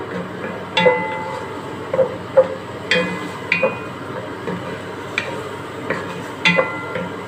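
A wooden spoon knocking and scraping against a metal cooking pot while stirring tomato, onion and garlic frying in oil: about ten irregular sharp knocks, several with a brief metallic ring, over a steady sizzle.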